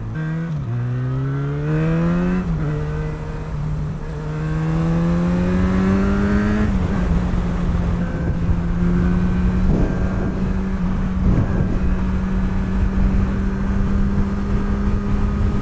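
Motorcycle engine accelerating hard up to about 70 mph. Its note climbs and drops back at two upshifts, about two and a half and seven seconds in, then holds a steady cruising note with wind noise underneath.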